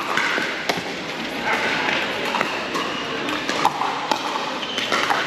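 Pickleball paddles striking the hard plastic ball, with the ball bouncing on the court, in a rally: a series of sharp pops at irregular intervals over the background chatter of players.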